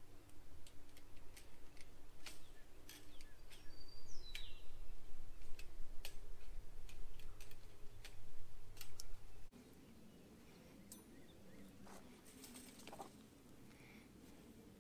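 Irregular sharp clicks and scrapes of hands and a tool working fence wire and clips at a woven wire fence, with a bird chirping once about four seconds in. The clicking drops much quieter about halfway through.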